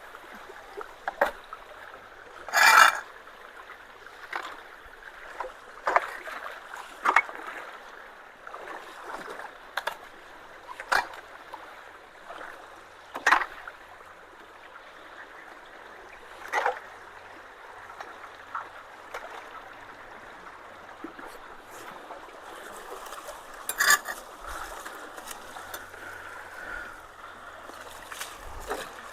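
Creek water rushing steadily through freshly unclogged culverts, flowing hard now that the leaves and sticks blocking them are cleared. Short, sharp splashes and knocks break in every few seconds; the loudest comes about three seconds in.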